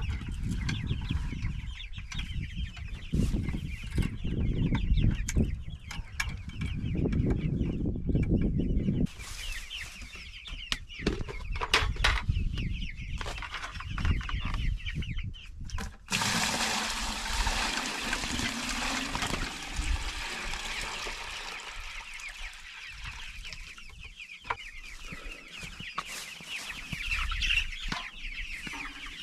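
A flock of young meat chicks calling constantly with many high chirps, with low rumbling noise during roughly the first third.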